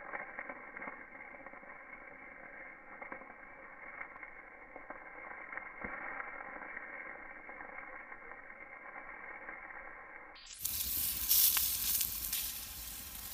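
Sausages sizzling in frying pans at the edge of a wood campfire, with the fire crackling. The sound gets louder and brighter about ten and a half seconds in.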